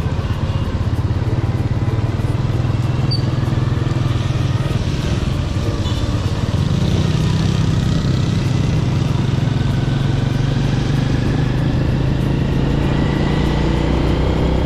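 Small underbone motorbike engine running while riding, with steady tyre and wind noise on a wet road; the engine note rises a little about six and a half seconds in as it picks up speed.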